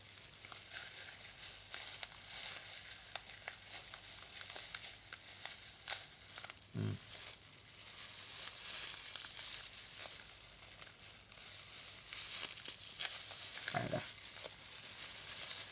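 Clear plastic disposable gloves and plastic wrapping crinkling and rustling as gloved hands work at them, a steady fine crackle with a hiss behind it. Two brief low falling sounds come about seven and fourteen seconds in.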